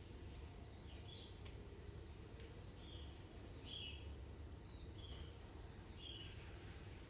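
Faint short, high bird chirps repeating about once a second, over a steady low background rumble.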